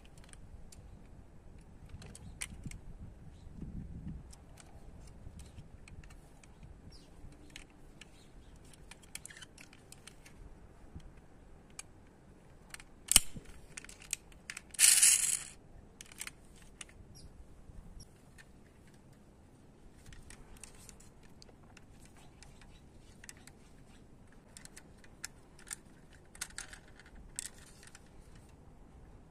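Diecast metal toy cars handled in the fingers: scattered small clicks and rattles, with one sharp click and a short rasp about halfway through.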